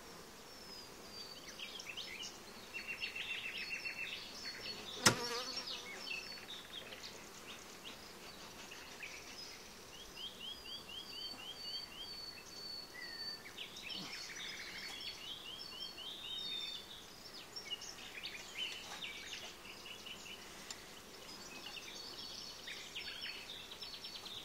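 Honeybees buzzing over an opened hive, with birds chirping in the background and one sharp knock about five seconds in.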